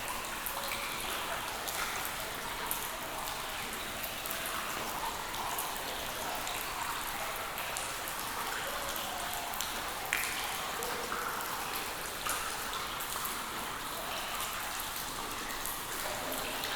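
Steady rain falling, with many individual drops striking close by as distinct sharp ticks over an even hiss.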